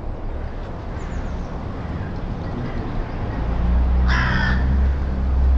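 A crow caws once, a short harsh call about four seconds in, over a steady wash of wind noise. From about three and a half seconds a low engine hum of a passing vehicle builds up beneath it and becomes the loudest sound.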